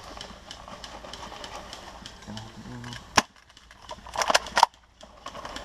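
Airsoft gun shots: a single sharp snap about three seconds in, then a quick run of several shots about a second later.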